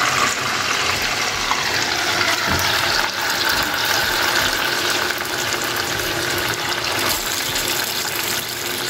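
Freshly boiled and water-rinsed noodles sizzling hard in hot oil in a kadhai at the start of deep-frying: a steady, dense hiss of the water on the noodles boiling off, easing slightly toward the end.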